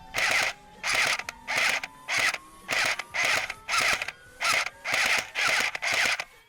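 Cyma M14 SOCOM electric airsoft rifle firing rapid semi-automatic shots, each one a short whirring burst from the gearbox, about eleven in a steady rhythm of roughly one every 0.6 seconds. A faint tone rises slowly underneath.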